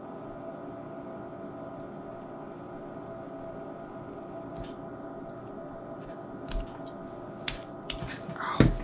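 Steady room hum with a few sharp clicks and taps in the second half, from hands working the cord. A brief vocal sound comes near the end.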